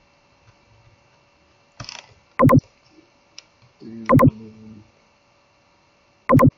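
Computer mouse button clicked three times, about two seconds apart, each a sharp press-and-release pair.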